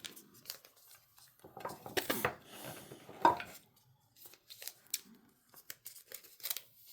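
Trading card packaging being torn open and handled by hand: bursts of rustling and tearing, with a sharp snap about three seconds in, then lighter clicks and taps.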